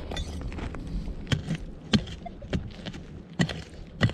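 Hand pick (talacha) striking hard, stony dirt: five sharp blows from a little past a second in, about every half second to second, digging out a metal detector target.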